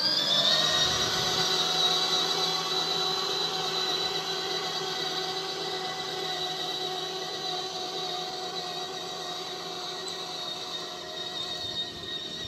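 Electric motor and gearbox of a child's battery-powered Polaris ride-on quad whining as it drives: the whine rises briefly as it starts, then holds a steady high pitch and slowly grows fainter.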